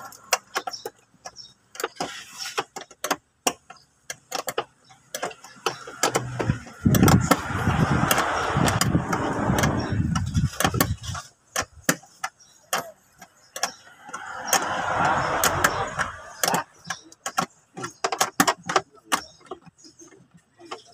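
Hand wrench working bolts in a van's engine bay: irregular metallic clicks and taps of the tool on the fittings. Twice a louder rushing noise rises for a few seconds, once around a quarter of the way in and again past the middle.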